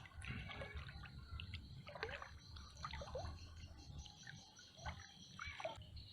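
Faint dripping and trickling water, with scattered small plinks.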